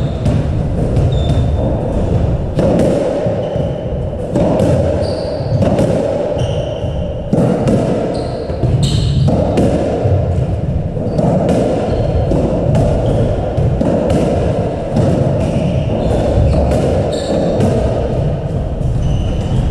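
Squash rally: the ball cracks off rackets and the court walls at an irregular pace, mixed with short high squeaks of shoes on the wooden court floor.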